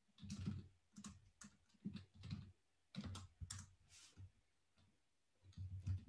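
Faint computer keyboard typing: keystrokes come in short quick runs with brief pauses between them.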